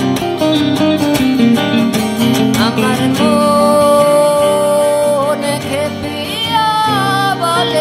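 Live guitar duo, an acoustic-electric and an electric guitar, playing plucked notes; about three seconds in a long held melody note comes in over them, then gives way to a wavering, bending melodic line.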